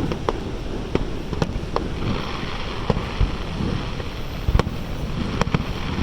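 Fireworks going off: about a dozen sharp bangs at irregular intervals, over a steady rushing background noise.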